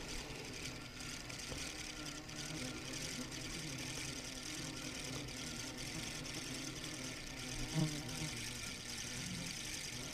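Spinning reel being cranked steadily as a wobbler lure is retrieved, a continuous faint mechanical whir. A short low sound comes about eight seconds in.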